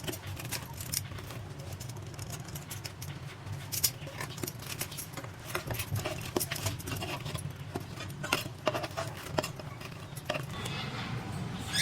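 Irregular light clicks and taps of kitchen utensils against a pan and plate as fried bread slices are dipped in sugar syrup and lifted out, over a steady low hum.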